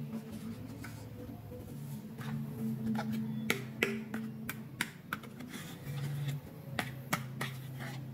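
Hard plastic toy pieces clicking and tapping as they are handled, including a small plastic doll sofa turned in the hands: a series of irregular sharp clicks, with a faint low steady hum behind them.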